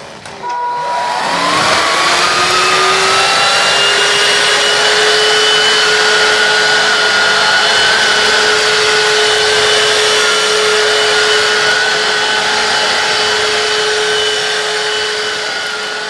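Dibea F6 cordless stick vacuum cleaner switched on: its motor spins up with a whine rising in pitch over the first couple of seconds, then runs at a steady high whine with a rush of air as the floor head moves over a carpet.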